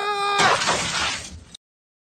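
A shouted high-pitched voice ends, then a loud crashing noise lasts about a second before the sound cuts off abruptly into silence.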